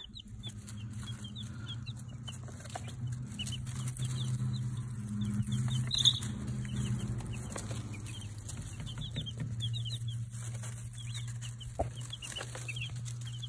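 A group of baby chicks peeping steadily: many short, high chirps, often overlapping, over a steady low hum.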